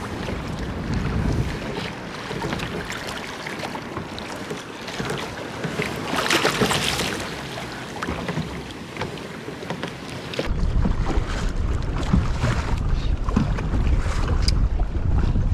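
Choppy sea water lapping and splashing around a kayak, with wind on the microphone and a louder rush of water about six seconds in. From about ten seconds on, heavy wind buffeting on the microphone.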